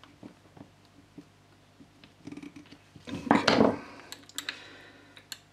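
Small metallic clicks and handling noises from a motorcycle brake lever and master cylinder assembly being worked on by hand with a tool, with a louder scraping rustle about three seconds in.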